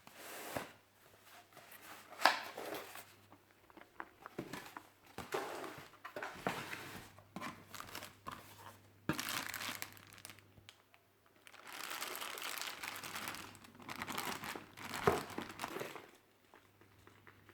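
Packaging crinkling and rustling as it is handled, in irregular bursts with a few sharper crackles, the loudest about two seconds in and again near the end.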